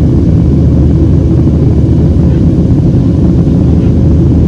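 Cabin noise of a Boeing 737-700 in flight: a loud, steady low rumble of its CFM56-7B engines and the airflow over the fuselage, with a faint steady hum above it.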